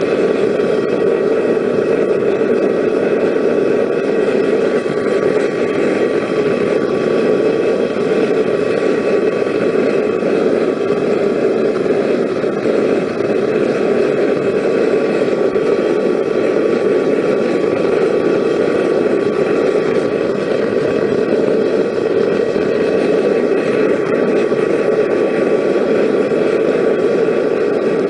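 Homemade propane burner firing into a refractory-lined forge: a steady rushing noise with faint steady tones above it.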